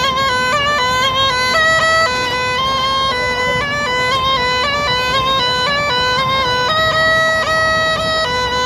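A snake charmer's pungi (been) playing a melody of a few held notes that step up and down, with brief dips in pitch.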